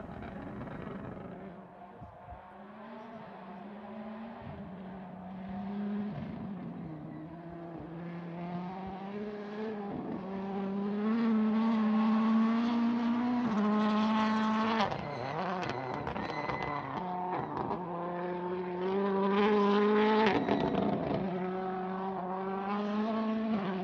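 Toyota Yaris WRC rally car's turbocharged four-cylinder engine running at high revs on a test stage, with brief dips at gear changes and lifts. The engine gets louder twice as the car comes through the bends.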